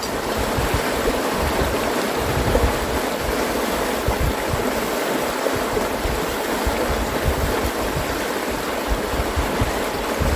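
River rapids rushing steadily, a loud, even wash of water noise.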